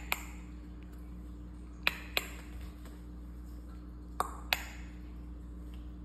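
Short, bright pings come in three pairs about two seconds apart, the two strokes of each pair about a third of a second apart. A faint steady hum runs underneath.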